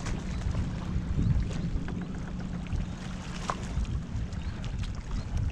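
Wind rumbling on the microphone over water lapping around a kayak, with a few light clicks.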